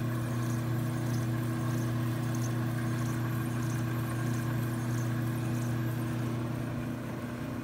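AMMCO brake lathe running steadily at its slowest spindle speed, turning a large brake rotor: an even motor and spindle hum with a faint tick repeating about every two-thirds of a second.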